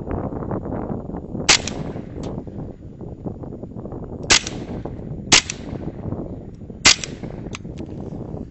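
Four sharp gunshots spread over about five seconds, with a few fainter clicks between them, over steady wind noise on the microphone.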